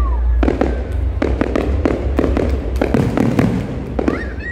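Aerial fireworks display: many sharp bangs and crackling bursts in quick, irregular succession over a steady low rumble.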